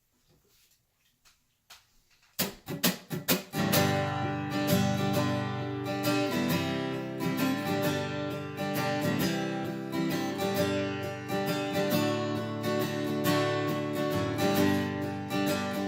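Acoustic guitar strummed, opening a country song's intro: after a couple of quiet seconds, a few separate strums, then steady rhythmic strumming.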